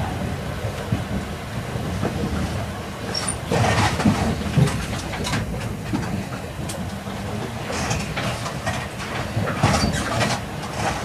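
Running noise of an E8 series Shinkansen train heard from inside the passenger car: a steady low rumble of wheels on rail with short clicks. There are louder rushes of noise about four seconds in and again near the end.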